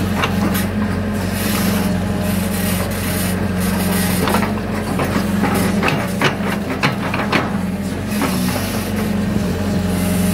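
Hitachi excavator's diesel engine running steadily while its bucket digs wet mud out of a drainage ditch, with a cluster of sharp clacks and scrapes in the middle.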